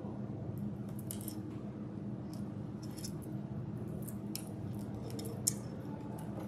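Plastic pony beads clicking against each other and the cord rasping as beads are slid along a plastic lacing cord by hand, with one sharper click about five and a half seconds in, over a steady low hum.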